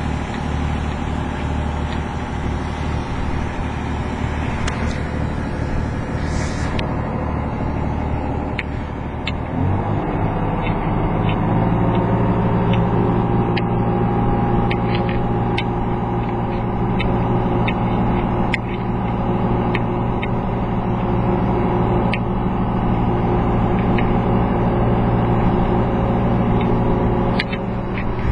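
Inboard Volvo diesel engine of a wooden boat running under way. About ten seconds in it is throttled up, rising in pitch and getting louder, then runs steadily at the higher speed, with water rushing along the hull and scattered light clicks.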